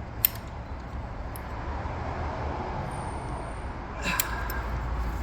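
Hand-tool work on a car's fuel sensor bolts: one sharp click about a quarter second in and a few fainter clicks, over a steady low rumble of vehicle-like background noise.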